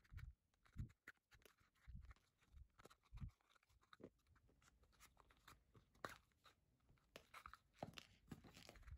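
Near silence with faint, scattered soft taps and rustles of a small piece of leather being handled and hand-stitched with a needle and thread.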